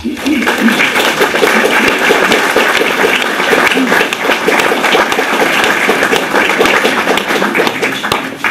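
An audience applauding steadily, many hands clapping at once, dying down near the end.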